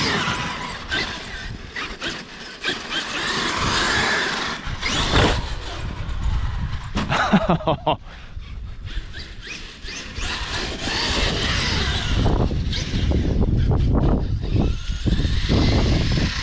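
Traxxas X-Maxx RC monster truck running, its brushless electric motor whining up and down in pitch as it accelerates and lets off, with tyre and rumbling noise from the dirt.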